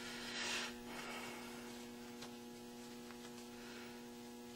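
Steady low electrical hum, with a brief soft rustle about half a second in and a few faint ticks.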